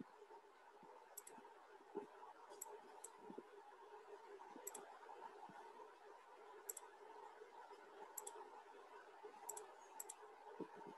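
Near silence with faint, sharp clicks every second or two, often in close pairs.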